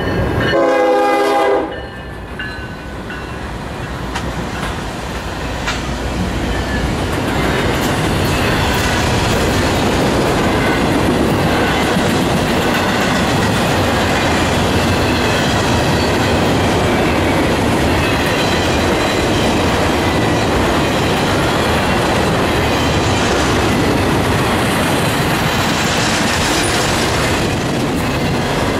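A locomotive horn sounds one chord for about a second and a half and cuts off sharply. Then comes the steady rumble and clack of a long intermodal freight train's wheels on the rails, building over several seconds as the train comes by and then holding steady.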